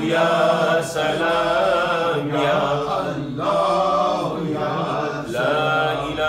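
A man chanting a melodic devotional recitation into a microphone, in long drawn-out phrases with short breaks between them.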